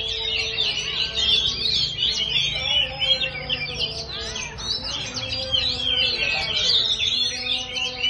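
Oriental magpie-robins singing continuously, a dense stream of varied, quickly rising and falling whistled phrases, several birds answering one another.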